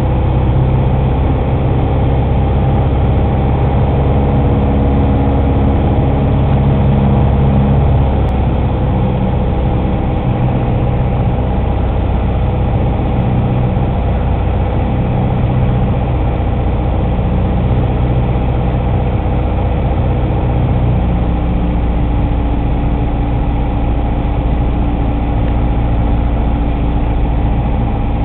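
Piper Archer II's four-cylinder Lycoming engine and propeller droning steadily, heard from inside the cabin in flight. The sound steps down a little about eight seconds in, then holds steady.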